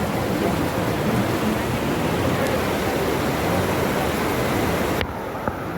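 Steady rushing noise that drops suddenly about five seconds in, followed by a single faint click.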